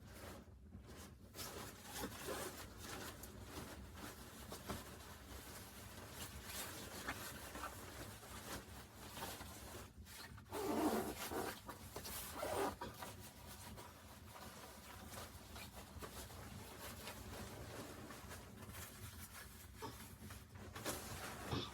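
Rustling and scraping of things being handled, with scattered small clicks and a louder burst of rubbing about eleven seconds in.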